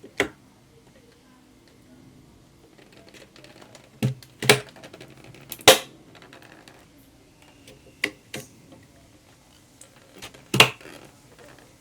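DDR4 RAM sticks being seated in a motherboard's memory slots, with a handful of sharp plastic clicks and knocks at irregular intervals as the slot latches snap shut.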